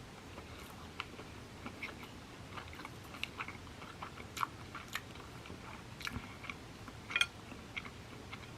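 Close-up chewing of a sushi roll: soft, wet mouth clicks and smacks at an irregular pace.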